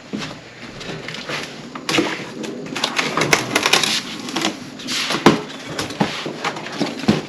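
Cardboard shipping box of a ceiling fan being opened and unpacked: cardboard and packing material scraping, rustling and knocking in irregular bursts with sharp clicks.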